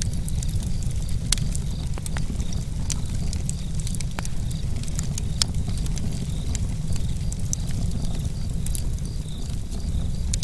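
Campfire crackling, with irregular sharp pops over a steady low rumble of the flames, while crickets chirp steadily in a high pulsing trill.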